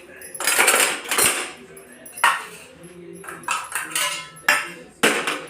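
Metal kitchen utensils clattering and scraping against a pot, with a few sharp clinks.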